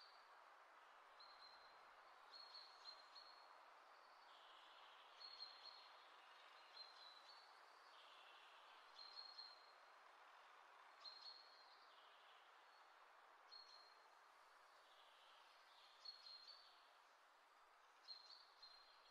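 Near silence: a faint steady hiss with soft, high bird chirps every second or two.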